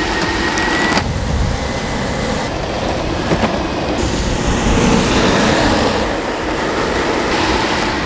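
Ownboard electric skateboard rolling fast on asphalt: steady wheel and road rumble, which jumps in character several times as the shots change.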